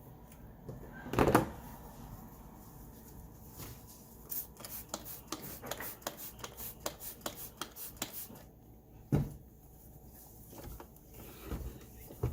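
Hard plastic parts of a robot vacuum being handled and fitted: a loud knock about a second in, a run of quick clicks and taps in the middle, and another knock about nine seconds in.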